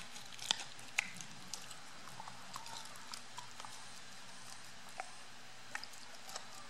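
Dog gnawing on a rawhide chew: irregular wet clicks and crunches as its teeth work the hide, with the sharpest cracks about half a second and one second in.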